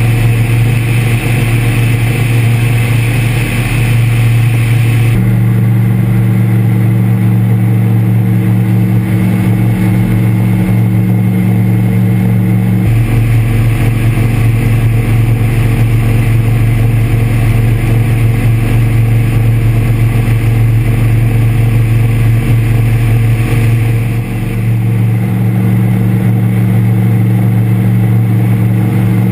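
Engine of an Air Creation Tanarg microlight trike running steadily at takeoff and climb power, a loud, even drone. The sound's character changes abruptly about five seconds in and again about thirteen seconds in.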